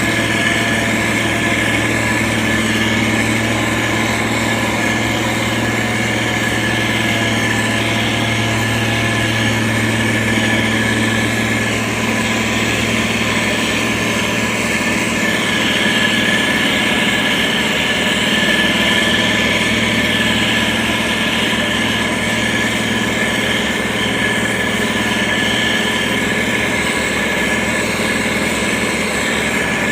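Heavy road-construction machine's diesel engine running steadily, a low drone with a steady high whine over it.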